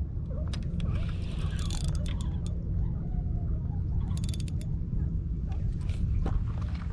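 Spinning reel being cranked against a hooked fish, its mechanism clicking in two short bursts, about a second in and again about four seconds in, over a steady low rumble.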